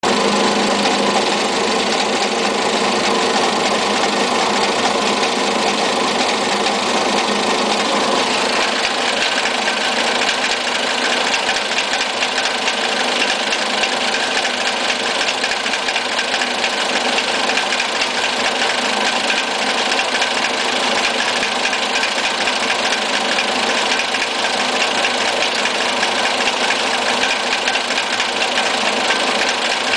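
Fiat Siena 1.6 engine idling roughly with a fast, steady ticking noise. The sound shifts and gets brighter about eight seconds in.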